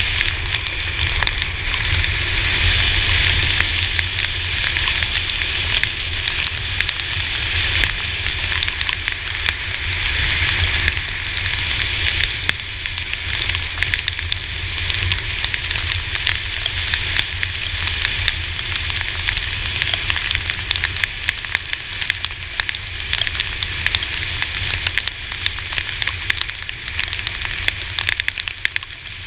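Rain striking the GoPro Hero4 camera as a dense, irregular crackle of ticks, over a steady hiss and low rumble of wind and the Yamaha T-Max 530 scooter riding on a wet road.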